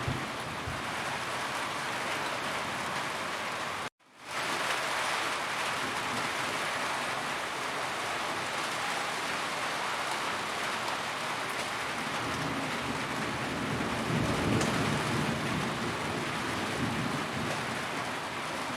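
Steady heavy rain falling on a roof, an even dense hiss. The sound cuts out for an instant about four seconds in and fades back up, and past the middle a low rumble of thunder swells under the rain.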